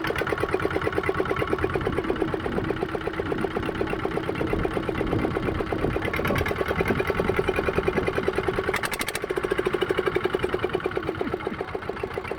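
Motorboat engine running steadily, with a rapid, even beat.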